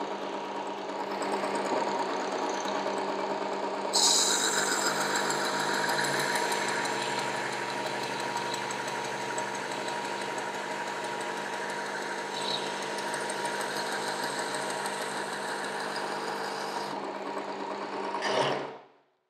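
Work Sharp Ken Onion Edition knife sharpener running, with its Blade Grinding Attachment's abrasive belt. From about four seconds in a knife blade is held against the belt and a grinding hiss rides over the motor hum, raising a burr on the edge. Near the end the grinding stops and the motor is switched off and runs down.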